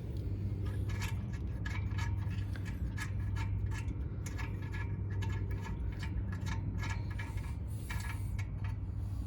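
Hand ratchet clicking in repeated runs as it backs out the rear brake caliper bracket bolts of a Toyota Camry, the pawl ticking on each return swing.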